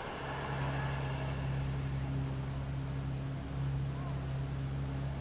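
A steady low engine-like hum, dipping briefly about three and a half seconds in, over a faint hiss of surf.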